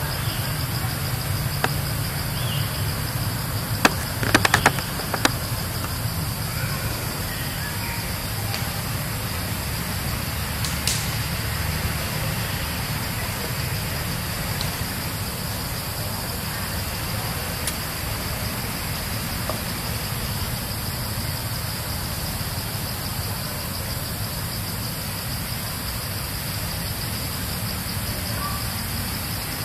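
Steady insect drone, a constant high-pitched buzz, over a low hum. A few sharp clicks about four to five seconds in.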